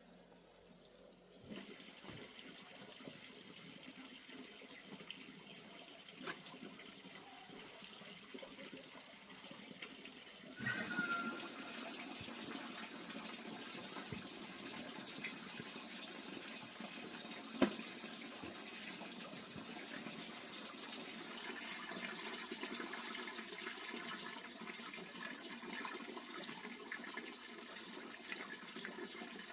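Water running steadily, getting louder about ten seconds in, with one sharp knock near the middle.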